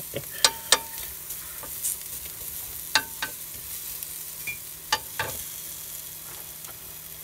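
Bacon and onion sizzling in a Ridge Monkey non-stick pan on a gas flame, stirred with a wooden spatula that knocks and scrapes against the pan in quick pairs: about half a second in, around three seconds and around five seconds.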